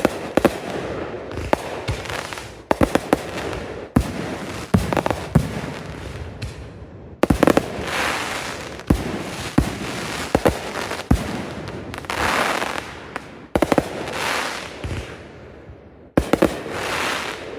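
A fireworks display going off: clusters of sharp bangs, sometimes several a second, with swells of crackling and fizzing between them.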